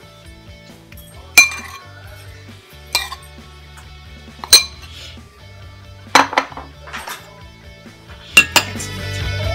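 Metal spoon clinking and scraping against a ceramic bowl and a glass cocktail glass while sauce is spooned out: a string of sharp clinks a second or two apart, several close together near the end. Background music runs underneath and grows louder at the very end.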